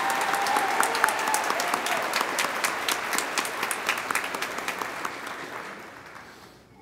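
Large audience applauding. The clapping thins out over the last few seconds and dies away.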